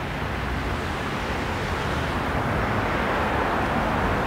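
Steady rushing outdoor background noise, growing slowly louder over the few seconds.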